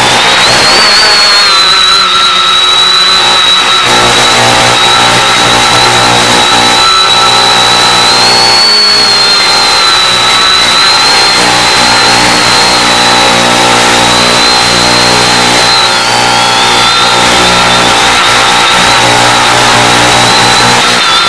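Steady buzz and whine of the X550AIOP quadcopter's motors and propellers while it holds a hover, heard through the FPV video downlink's audio under heavy hiss. A high whine wavers slightly in pitch as the throttle shifts.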